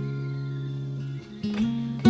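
Background music: acoustic guitar chords ringing out, with a couple of new plucks near the end.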